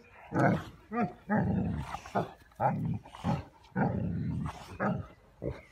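Two English Mastiffs play-fighting, with a string of short, irregular growls and grunts, some a quick blip, some drawn out for about half a second.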